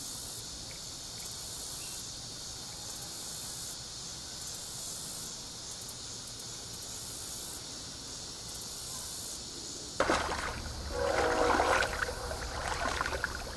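Steady high-pitched insect buzzing that pulses about every second or so. About ten seconds in, background music comes in over it.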